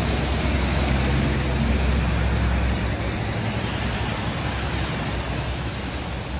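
Steady rushing noise of wind buffeting a phone microphone outdoors in wet weather, with a heavy low rumble that eases about three seconds in.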